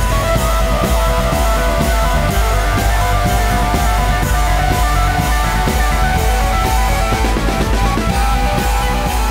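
Background rock music with guitar and drums and a steady beat; a long held note slowly rises in pitch.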